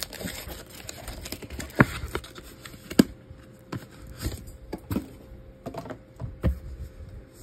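Hands handling plastic card cases and a cardboard box on a tabletop: irregular light clicks and taps, with sharper knocks about two and three seconds in and again near the end.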